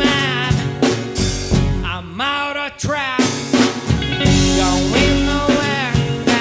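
Folk rock band playing live: a man singing over acoustic and electric guitars, bass guitar and a drum kit. The drums and bass drop out for about a second midway, then come back in.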